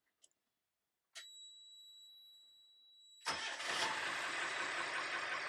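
A warning buzzer on the boat's helm panel comes on about a second in as one steady high-pitched tone. It cuts off when the starter engages, and the Cummins 5.9-litre 12-valve turbo diesel starts and keeps running loudly.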